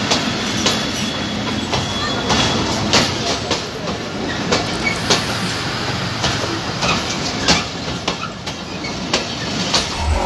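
Passenger coaches of the Nakshikantha Mail rolling past at close range: a steady rumble of wheels on rail, with irregular sharp clicks and clatter as the wheels cross the rail joints.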